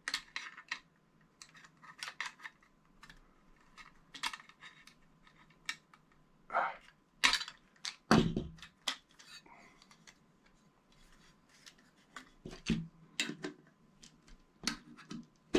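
Flat-blade screwdriver clicking and scraping against a Midnite Solar Baby Box breaker enclosure and the breaker's small clips while prying the clips out: irregular light clicks and taps, with a heavier knock about eight seconds in.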